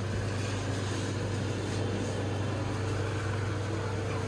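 Steady low mechanical hum with a faint higher steady tone over a background hiss, the even machine drone of a shop's equipment.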